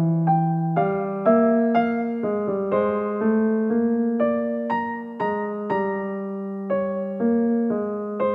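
Background piano music: notes and chords struck about twice a second, each dying away before the next.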